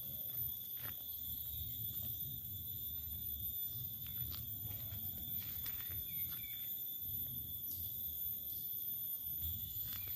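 Walking over dry leaf litter with a handheld camera: low handling rumble and a few faint footfall clicks, under a steady high-pitched whine.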